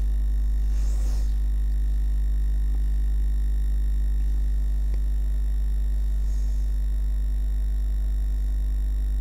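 Steady electrical mains hum with a buzzy string of higher overtones, the loudest thing throughout. Faint swishes of a paintbrush spreading gesso over paper come about a second in and again around six seconds.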